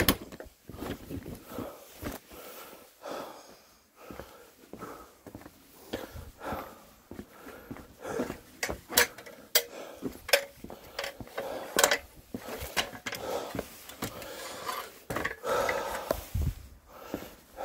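Footsteps on a hard floor mixed with irregular knocks, clatter and rustling as gear is handled, with several sharp knocks in the middle.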